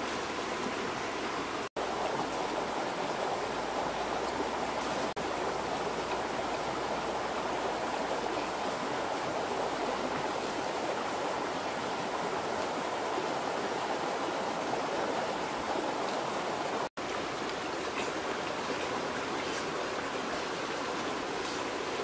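Steady rushing of a flowing stream or river, an even wash of water noise with no other sound standing out. It breaks off for an instant twice, near the start and about three-quarters of the way through.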